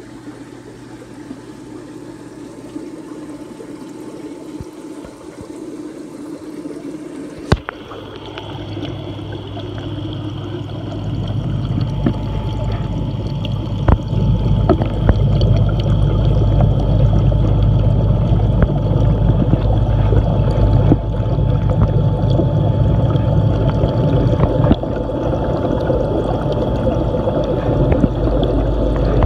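Aquarium water heard through a phone held at the surface and then underwater: a light trickling, splashing sound at first. About a quarter of the way in there is a knock, and the sound turns to a muffled deep underwater rumble that grows louder, with a faint steady hum and a few more knocks.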